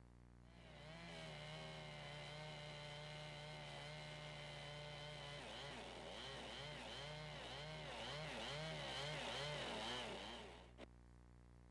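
Chainsaw running at a steady high speed, then cutting into a log with its pitch dipping and recovering about one and a half times a second as the chain bites under load; it stops abruptly near the end, followed by a single click.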